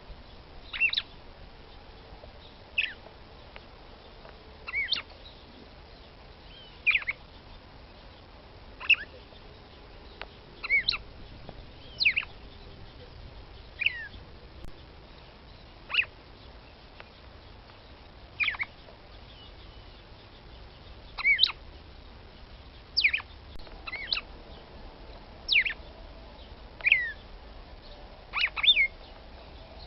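Female red-cowled cardinal (Paroaria dominicana) giving short, sharp call notes, each a quick downward sweep, repeated about every two seconds, sometimes two in quick succession.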